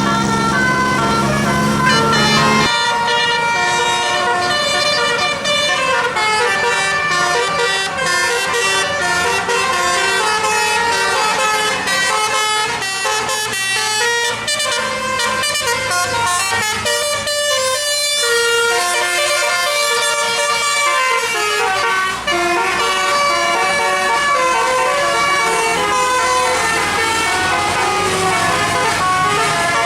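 Indonesian bus 'telolet' musical air horn playing a long multi-note tune, its notes stepping up and down in quick succession. A steady low tone under the horn stops about two and a half seconds in.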